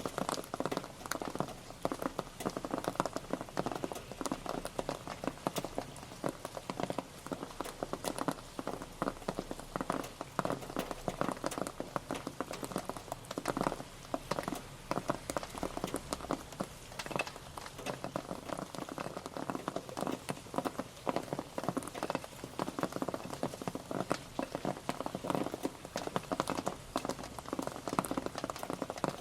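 Rain pattering: many irregular drops hitting a surface in a dense, even patter.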